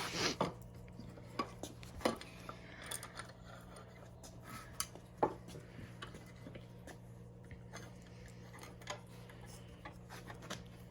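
Scattered light knocks and clicks of wood pieces and a clamp being handled and set in place, a few sharper knocks among them.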